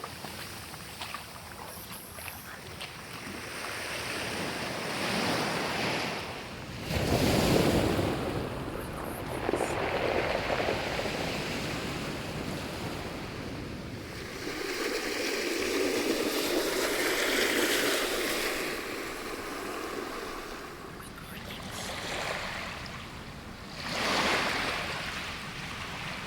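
Ocean waves breaking and washing in: a steady rush of surf that swells and falls every few seconds. The loudest breakers come about seven seconds in and again near the end.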